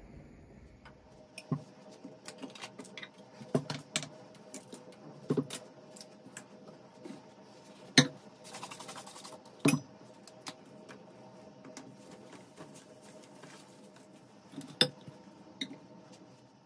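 Kitchen items being picked up and set down on a stone countertop: scattered clinks and knocks of glass and bottles, the sharpest about eight seconds in, followed by a brief rustle. A faint steady hum runs underneath.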